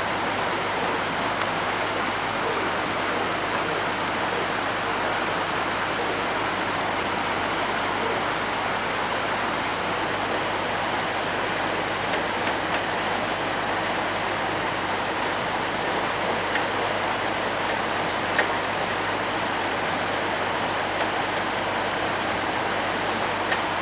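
Shallow mountain river rushing and splashing over and between boulders, a steady, even whitewater sound.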